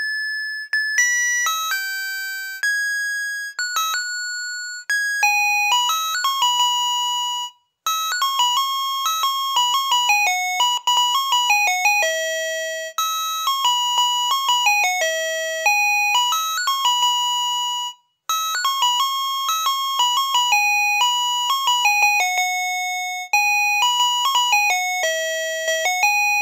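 Kenko KK-8139TH voice calculator alarm clock's melody chip playing its built-in alarm tunes as a single line of electronic notes, each note fading quickly. About eight seconds in the tune stops briefly and the next alarm tune begins, and its phrase starts over after another short break near eighteen seconds.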